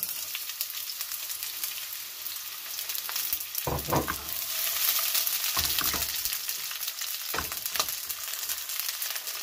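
Sliced onion sizzling and crackling in hot olive oil in a preheated nonstick wok, starting abruptly as the onion hits the oil.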